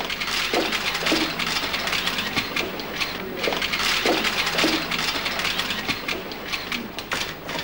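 Rapid, overlapping clicking of many press cameras' shutters and motor drives, with the shuffling and low murmur of the press pack.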